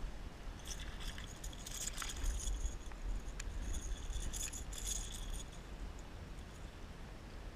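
Small largemouth bass thrashing at the surface as it is reeled in and swung up out of the water: irregular bursts of splashing and rattling that start about a second in and die away once the fish is lifted clear, about five seconds in.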